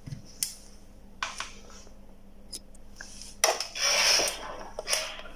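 Small objects being handled on a workbench: a few separate light clicks and knocks, then a brief rustling scrape about three and a half seconds in and a shorter one near the end, over a faint steady hum.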